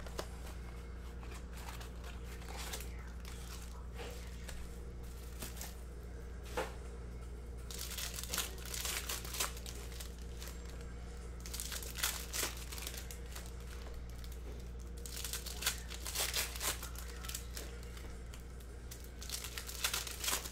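Foil wrappers of Panini Prizm basketball card packs being torn open and crinkled by hand, in repeated bursts of crackly rustling from about a third of the way in, over a steady low hum.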